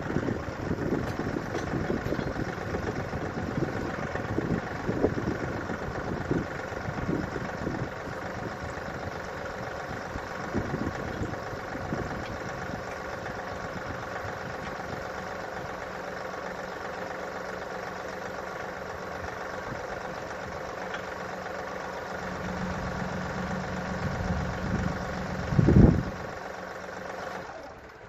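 John Deere 2038R compact tractor's three-cylinder diesel engine running while the 270B backhoe is reattached, with repeated clunks and knocks over the first dozen seconds. From about halfway the engine note settles into a steadier drone that grows louder, and one loud clunk comes near the end.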